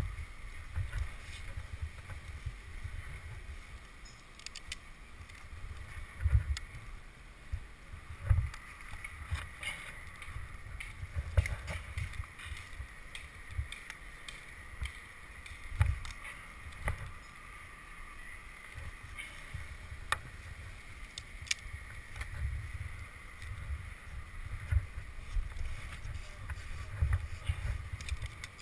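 Handling noise from a climber moving on a tree trunk, picked up by a body-worn camera: irregular low thumps and rustling as clothing, rope and gear brush the microphone, with a few sharp clicks and a faint steady high hiss underneath.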